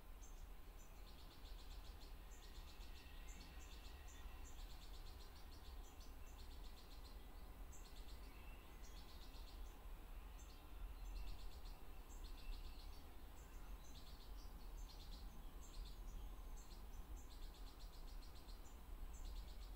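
Fledgling European goldfinch begging from its parent: short bursts of rapid, high-pitched ticking calls, roughly one burst a second throughout, over a faint low rumble.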